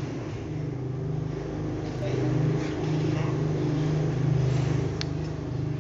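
A motor running steadily with a low hum. Near the end come two light clicks, like a metal spoon knocking against a ceramic bowl.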